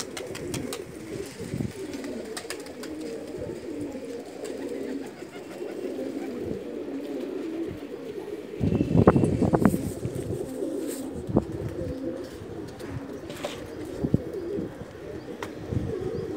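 A flock of domestic pigeons cooing continuously on a rooftop loft. About nine seconds in, a louder rough burst of noise lasts for about a second and a half.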